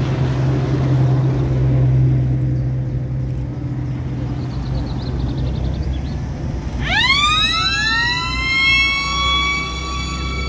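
Convoy vehicle engines run with a steady low hum. About seven seconds in, a siren winds up, rising quickly in pitch and then holding a steady wail.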